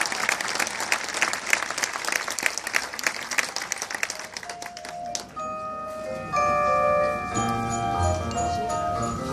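Crowd applause dies away over the first five seconds or so. Then the marching band's front ensemble plays a soft passage of bell-like mallet-percussion notes, with low sustained bass notes coming in about two seconds later.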